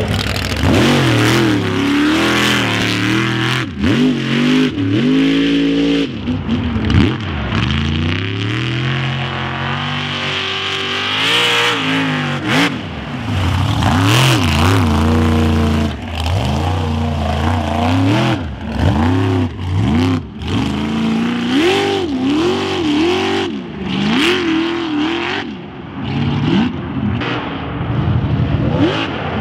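Mega truck engine revving hard, its pitch rising and falling over and over as the throttle is worked on and off. There is a longer high pull about ten seconds in.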